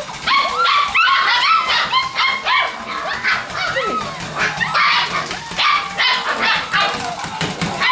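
Six-week-old border collie puppies yipping and barking: a rapid, overlapping string of short, high-pitched calls.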